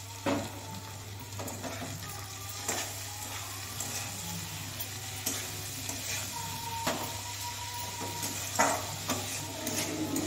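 Metal spatula stirring and scraping potatoes and ground spinach paste in an aluminium kadhai, with irregular knocks against the pan, the loudest near the end. Underneath, the food sizzles lightly in the hot oil.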